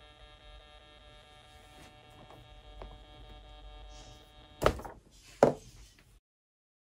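Faint steady electrical hum, then two loud knocks about a second apart as hands handle the foam RC plane and its wiring; the sound then cuts off abruptly.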